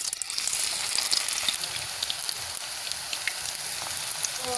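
Methi pakoda batter frying in hot oil in a kadhai: a steady sizzle with small crackling pops.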